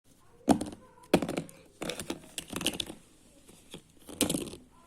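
Slime being squeezed and worked by hand, giving about five short bursts of crackling little pops with pauses between.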